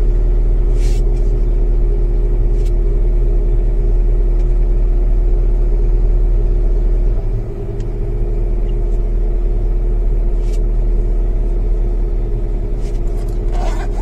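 Car engine idling while it warms up after a cold start, heard from inside the cabin as a steady low hum. About seven seconds in it drops a little in loudness and settles, with a few light clicks along the way.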